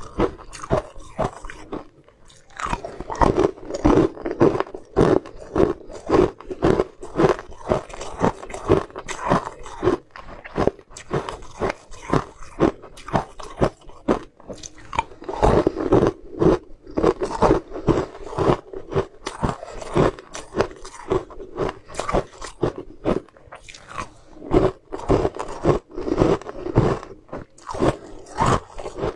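Close-miked biting and crunching of small, hard, white ring-shaped sweets, with chewing: crisp crunches come several times a second, with a short lull about two seconds in.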